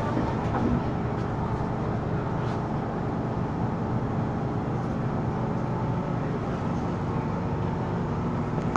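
Cabin noise of a Hong Kong MTR M-Train electric multiple unit running underground: a steady rumble with a few faint held tones.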